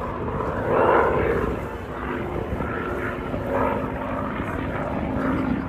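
Propeller aircraft's piston engine running, growing louder about a second in, then easing back to a steady level.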